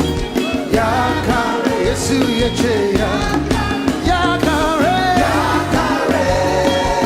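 Live gospel praise music: a band with drums and bass under singing voices, upbeat and dance-like.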